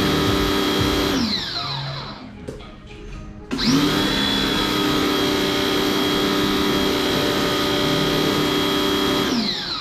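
Electric pressure washer motor running with a steady whine. It winds down about a second in, starts again with a rising whine about three and a half seconds in, and winds down once more near the end.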